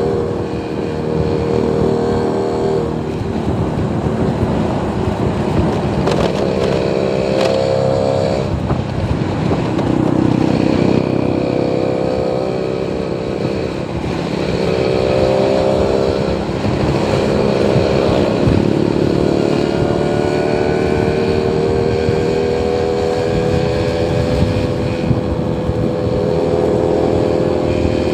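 Motor vehicle engine running, its pitch rising and falling over several seconds as it speeds up and eases off.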